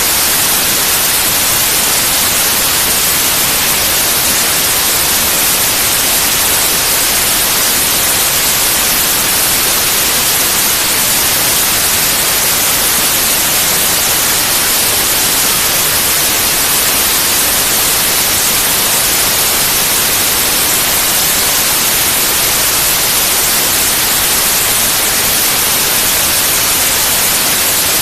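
Steady, loud white noise: an even hiss with no changes, strongest in the high frequencies.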